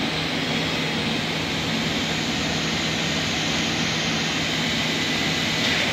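Steady drone of grain-discharging machinery at the ship's side, an even rushing noise over a low hum.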